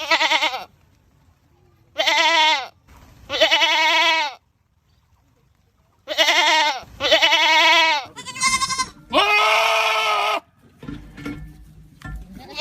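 Goat screaming: about seven loud, wavering bleats in quick succession, some of them back to back, then fainter low sounds near the end.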